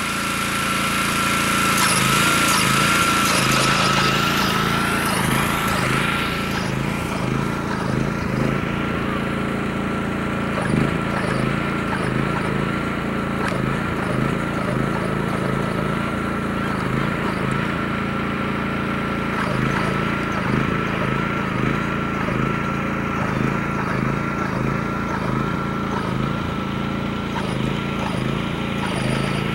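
A lure-coursing machine's small gasoline engine runs steadily, pulling the lure line across the field. A steady high whine wavers now and then over the engine. The engine is louder and hissier over the first few seconds, then settles.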